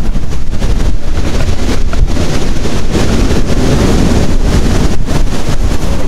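Wind buffeting the microphone: a loud, steady low rumble.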